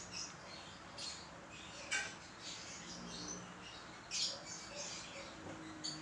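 Young lovebird making soft, short squeaky chirps, with a couple of light taps about two and four seconds in.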